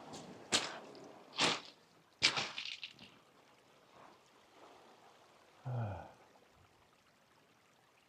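Footsteps splashing through a shallow stream over stones, three or four sudden steps in the first three seconds, over the faint trickle of the stream. A brief low grunt falls in pitch about six seconds in.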